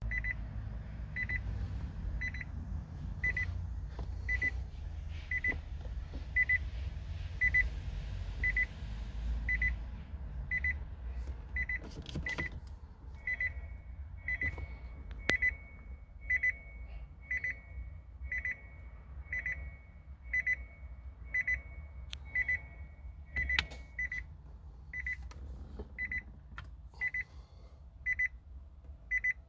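Nissan Leaf's reverse-gear warning beeping in the cabin, a short high beep repeating about once a second, with a few sharp clicks in between.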